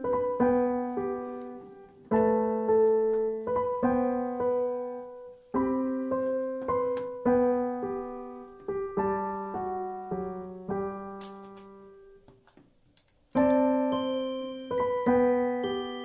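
Background piano music: a gentle melody of single decaying notes in short phrases, breaking off briefly about twelve seconds in before starting again.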